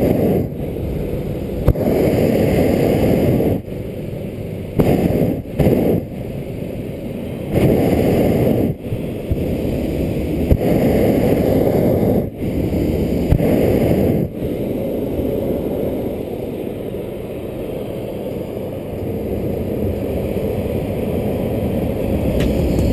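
Cloudhopper's propane burner firing in repeated blasts of one to two seconds, each starting and stopping sharply, heating the envelope in flight; after about fourteen seconds the blasts stop and a steadier, quieter rushing remains.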